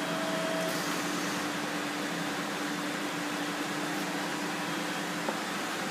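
Hydraulic guillotine running idle, its motor and hydraulic pump giving a steady hum with one constant tone. A brief higher tone sounds in the first second, and a light click comes near the end.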